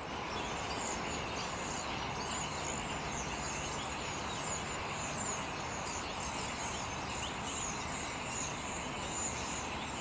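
A large flock of songbirds calling all at once: a dense, continuous chatter of short high chirps over a steady rushing background noise.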